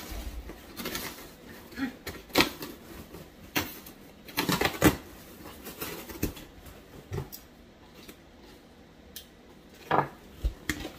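Knife blade slicing through packing tape on a corrugated cardboard box, in a run of irregular scrapes and clicks, with cardboard flaps scraping and rustling as they are pulled open; the loudest strokes come about halfway through and again near the end.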